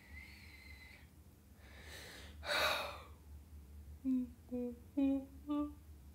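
A woman takes one loud breath about two seconds in, then makes four short low hums, like someone thinking.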